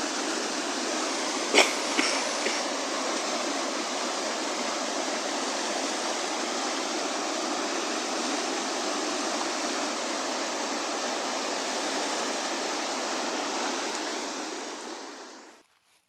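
River rapids rushing, a steady even noise of water over stones. A sharp click about a second and a half in, with two fainter ones just after. The rush fades out near the end.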